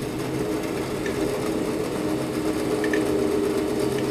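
Jet 14-inch bandsaw, refitted with a treadmill motor on a speed controller, just started and running with a steady hum. The sound swells in the first moment as the wheels come up to speed, then holds even.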